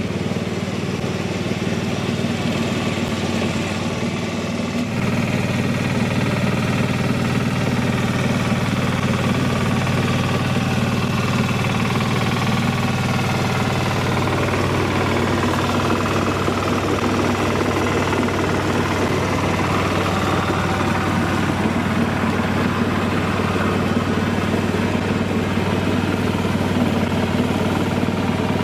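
Westwood D1200 diesel ride-on mower running steadily while it cuts long grass with its 36-inch deck, blades engaged. The sound gets slightly louder about five seconds in.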